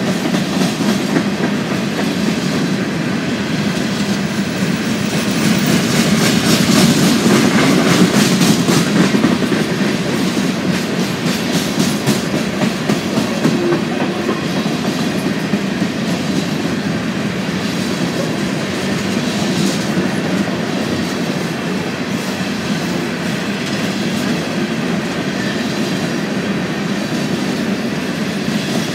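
Empty coal hopper cars of a freight train rolling past: a steady rumble of steel wheels on rail, with a louder stretch of rapid clicking over the rail joints from about six to nine seconds in.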